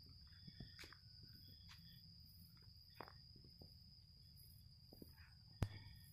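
Near silence: faint outdoor ambience with a steady high-pitched tone like an insect trill, and a few soft clicks, the sharpest about five and a half seconds in.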